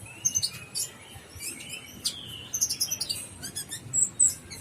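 Kolibri ninja sunbird singing in full voice: quick, high chirps and short twittering trills in several bunches.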